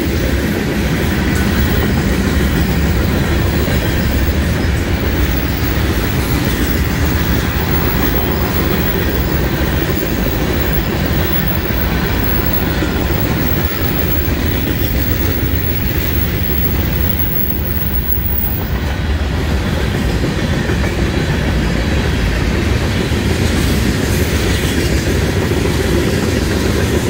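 Mixed freight cars of a Florida East Coast Railway train (hoppers and tank cars) rolling past at close range: steady wheel-on-rail noise, strongest low down.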